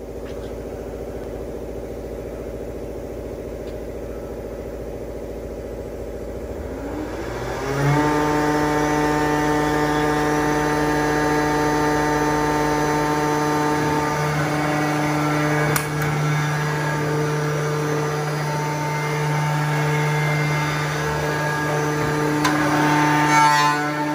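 Balestrini PICO/MD round-end tenoner and mortiser humming, then about seven seconds in its motor spins up, rising in pitch, and settles into a steady run at speed.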